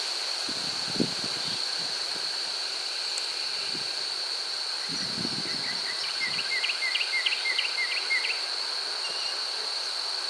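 Outdoor ambience with a steady high insect drone, a couple of soft low bumps, and a quick run of about a dozen short high chirps about six to eight seconds in.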